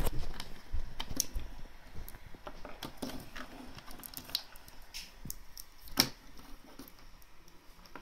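Irregular clicks, taps and rustles of a plastic HDMI-to-VGA adapter and its cables being handled at a laptop's side port, with the sharpest click about six seconds in.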